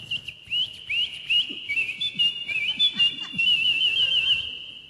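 A man whistling an imitation of canary song: a sustained high whistle broken by quick upward chirps and trills, with a fast warbling run near the end before it fades out.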